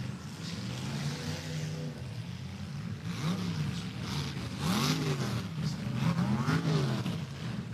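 Demolition derby cars' engines revving up and down, several pitches rising and falling over each other, with a few short sharp knocks mixed in.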